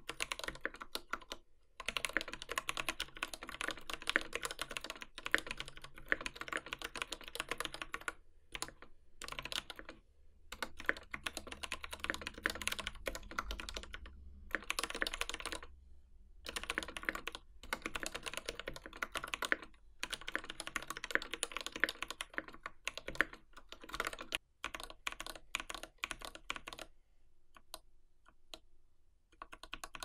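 Typing on an MxSS custom 65% mechanical keyboard, a polycarbonate case with a brass weight, lubed T1 tactile switches and GMK DMG keycaps. Quick runs of keystrokes with short pauses; the typing stops a little before the end, then a few more keys are pressed.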